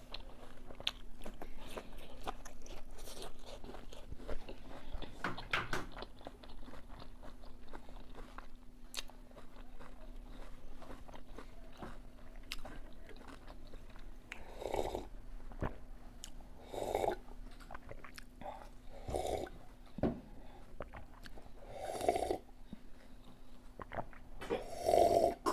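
Close-up eating of a raw apple: crisp bites and chewing, with louder crunches every couple of seconds in the second half, over a faint steady hum.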